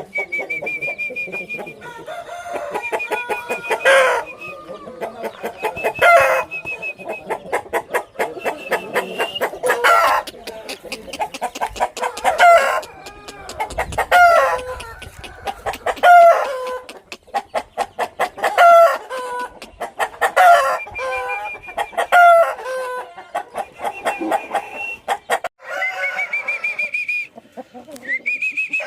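Aseel chickens clucking and calling: a fast run of clicking clucks throughout, falling calls about every two seconds, and several long high held notes.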